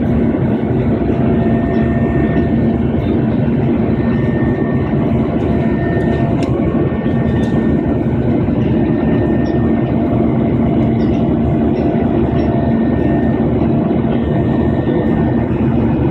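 Airliner engines and airflow heard from inside the passenger cabin during takeoff, a loud steady drone with a few faint steady tones.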